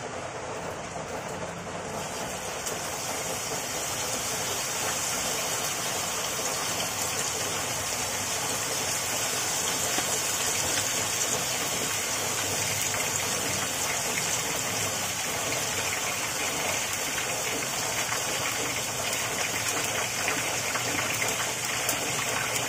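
Pork chops sizzling in hot cooking oil in a frying pan. The hiss grows louder over the first few seconds, then holds steady.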